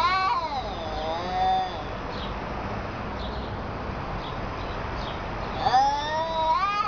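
Domestic cats yowling at each other in a territorial standoff: long, wavering caterwauls, one running into the start, a lower one about a second in, and a long rising one near the end.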